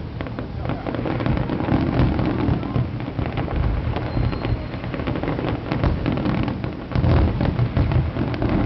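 Aerial fireworks going off: deep rumbling booms with dense crackling, and a louder burst about seven seconds in.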